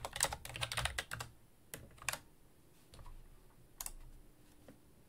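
Typing on a computer keyboard: a quick run of keystrokes in the first second or so, then a few scattered key presses.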